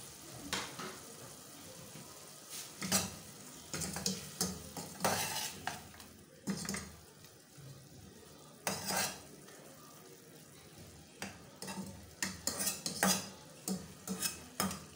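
A wooden spatula and then a metal slotted spoon stirring tomato, onion and dried fish frying in a stainless steel saucepan: irregular scrapes and clinks against the pot over a low sizzle.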